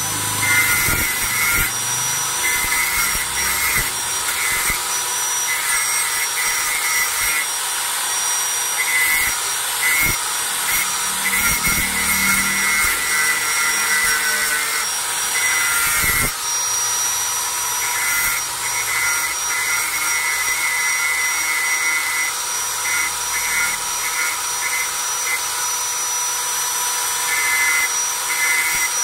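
Electric angle grinder running at speed, its disc grinding the steel cutting blade of an ID card punch to sharpen it, with a steady high whine and a grinding noise that comes and goes as the disc is pressed on and eased off the steel.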